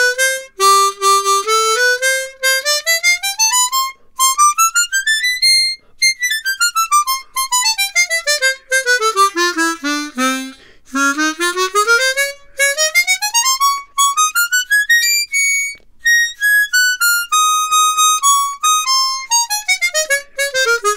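Hohner ACE 48 12-hole chromatic harmonica, brand new and fitted with copper acoustic-coupling blocks, played at moderate volume in warm-up scales. The scales climb note by note from the bottom of its range to the top and back down, twice over. The tone is a bit more solid than expected, which the player credits to the copper blocks.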